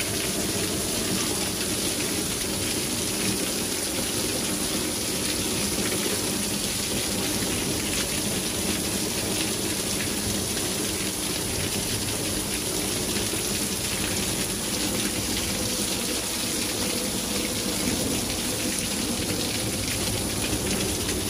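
Heavy downpour: steady, dense rain hammering a lawn, street and parked cars, with water pouring off the edge of a porch roof.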